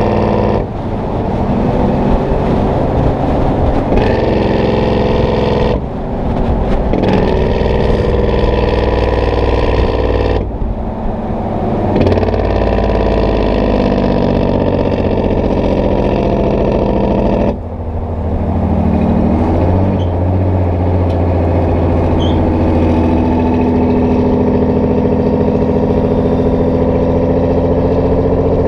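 Detroit Diesel 12V-71 two-stroke V12 diesel of a Kenworth W900A truck running under load. Its note cuts out briefly four times, about one, six, ten and seventeen seconds in, then picks up and climbs again after each break, as the throttle is lifted for gear changes.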